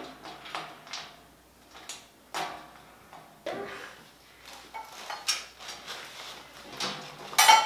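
Metal bird cage panels and bars clinking and clanking now and then as they are fitted together, with the loudest clank near the end.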